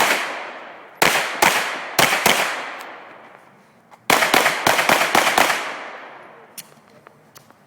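Pistol gunfire in an action pistol course of fire, each shot echoing away. There are two shots about a second in, another quick pair or three a second later, then a rapid string of about half a dozen shots about four seconds in.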